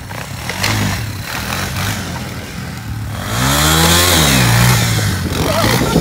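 Four-wheel ATV engine running as it is ridden across grass, its pitch climbing and then easing off again, loudest a little past halfway.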